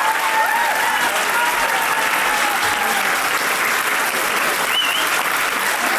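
Audience applauding steadily, with scattered cheers and whoops; one high, rising whoop comes a little before the end.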